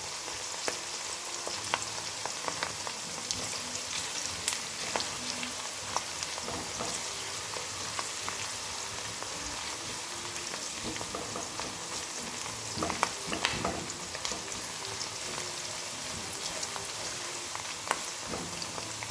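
Chopped onions sizzling in hot oil in a metal karahi at medium heat, still pale before browning, as a spatula stirs them and scrapes against the pan. There is a steady hiss with scattered clicks, and a run of louder scrapes about 13 seconds in and again near the end.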